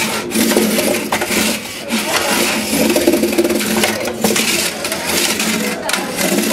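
Antweight combat robots fighting: small electric drive motors whirring while the robots' bodies and wheels clatter and knock against each other, the arena floor and the walls.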